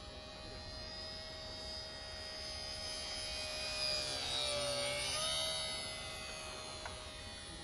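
Whine of an electric RC model plane's brushless motor and propeller, a 400-class scale AT-802 Air Tractor, in flight. It grows louder as the plane makes a low pass, peaks about four to five seconds in with its pitch dipping briefly, then fades.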